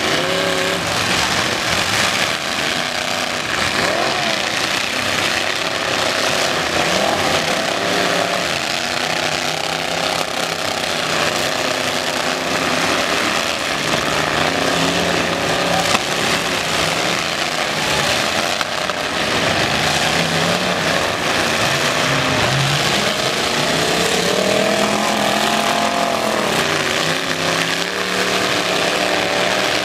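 Several demolition-derby pickup truck engines running and revving together, their pitches rising and falling over one another, with one sharp bang about halfway through.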